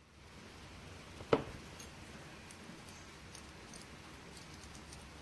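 One sharp little metallic click about a second in, then faint light ticks: tweezers and small brass lock pins and a spring being handled while a pin-tumbler lock cylinder is taken apart.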